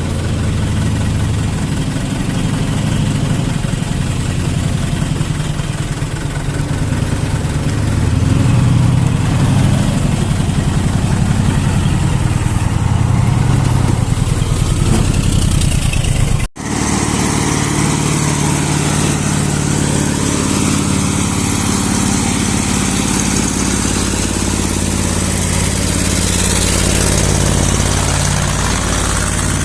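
Rebuilt Mitsubishi Fuso 8DC8 V8 diesel engine running steadily at idle. The sound breaks off for an instant a little past halfway, then carries on the same.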